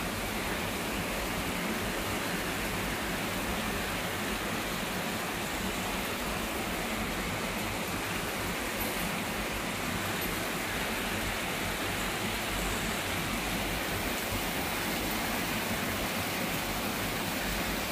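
Heavy typhoon rain falling steadily over the city, a constant even hiss.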